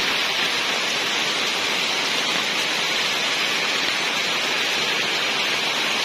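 Steady rain falling on rainforest foliage, an even hiss.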